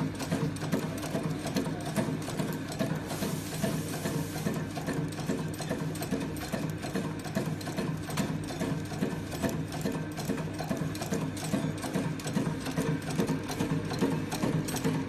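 HDK-100D heat-shrink tubing cutting machine running, feeding and chopping tubing to length in rapid, regular strokes over a steady motor hum.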